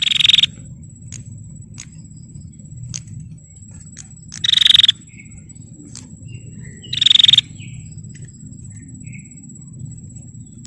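Female prinia giving its rapid rattling ngetir call three times, each burst about half a second long, with short faint ticks between calls and a thin steady high tone running underneath.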